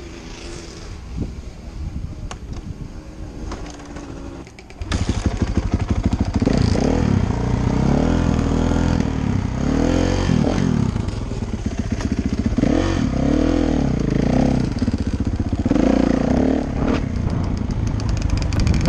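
A few light clatters, then about five seconds in a loud dirt bike engine comes in and revs up and down again and again, its pitch rising and falling.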